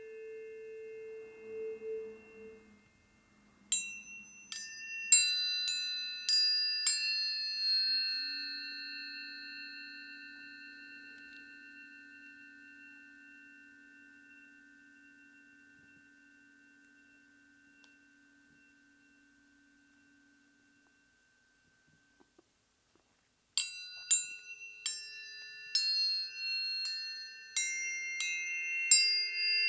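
Planetary tuning forks struck in quick succession, about six strikes a few seconds in, their high ringing tones layering and slowly dying away to near silence. A second run of strikes starts near the end and rings on.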